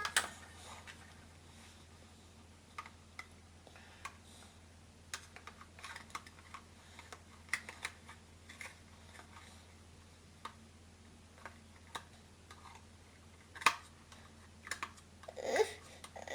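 Scattered light clicks and taps at irregular intervals as toy food pieces and a toy knife from a Velcro cutting playset are handled and knocked together.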